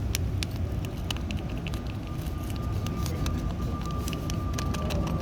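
Scattered light clicks and ticks of a chemical anchor bolt being handled and fixed, over a steady low rumble.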